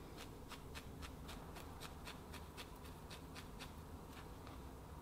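Felting needle jabbing again and again through a wool ball into a bristle felting brush base: faint, quick scratchy pricks about four or five a second, stopping shortly before the end.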